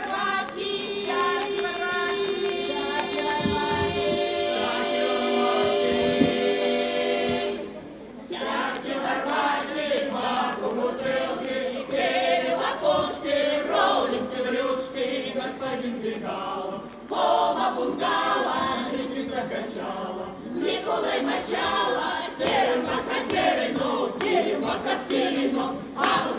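Veps folk choir singing: a long held chord for the first seven seconds or so, then, after a brief break, a livelier passage with quickly changing notes.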